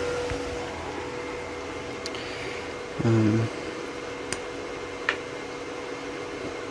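Steady fan-like machine hum with a few faint clicks as a small plasma-cut steel part is handled, and one short vocal sound about three seconds in.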